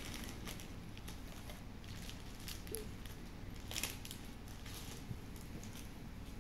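A small pack of cards and its wrapper being handled: soft rustling and crinkling in short bursts, the sharpest nearly four seconds in, over a faint steady hum.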